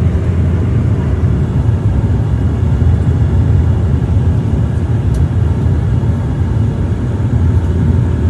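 Steady low drone of a turboprop airliner's engines and rushing airflow, heard inside the cabin on final approach with the landing gear down.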